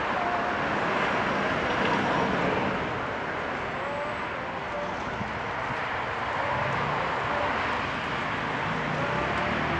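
Steady traffic noise from cars passing through a busy city intersection.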